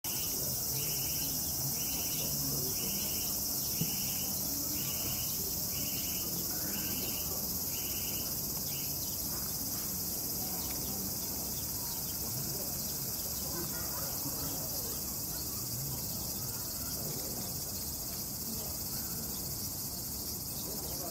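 Steady high-pitched insect chorus. A second insect call pulses in short bursts about once a second through the first nine seconds or so, then stops.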